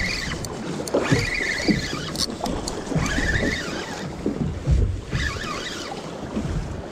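Spinning reel whirring in several short bursts as the handle is cranked to retrieve a jig, each whir rising and falling in pitch. Under it, wind buffets the microphone and water slaps against the boat.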